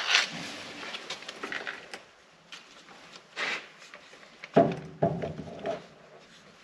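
Handling noises of a sheet-metal panel being worked into place: a scrape at the start, then scattered light knocks and short rattles.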